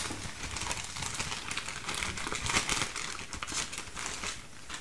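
Small plastic zip-lock bag crinkling and rustling as gloved hands open it and handle the rebuild-kit parts inside, in a run of irregular crackles.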